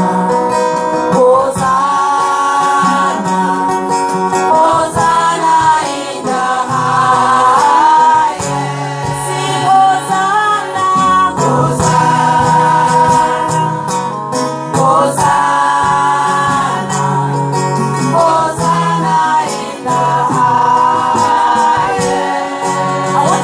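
Women's voices singing a gospel worship song into microphones, held notes over instrumental backing music with sustained low bass notes.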